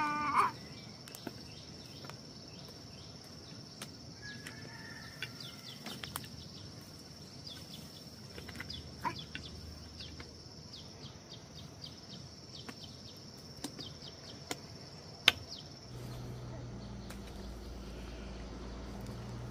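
Insect drone, a steady high-pitched shrill that stops about sixteen seconds in, over scattered small clicks and knocks, the sharpest near fifteen seconds. A low steady hum takes over near the end.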